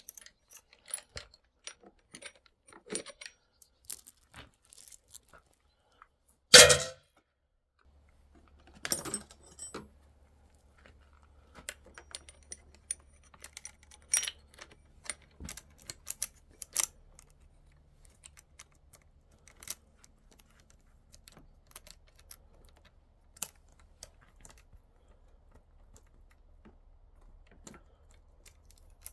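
Steel saw chain and guide bar of a Dolmar chainsaw being handled and fitted: scattered light metallic clicks and clinks, with one loud clatter about six seconds in.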